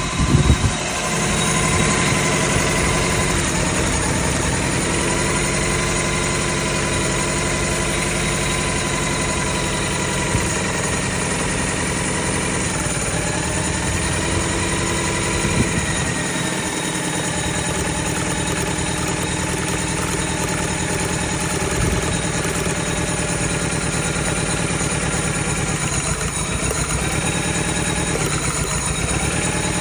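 Car engine with a misfire idling steadily, after a short loud burst right at the start, with a few brief louder knocks scattered through it.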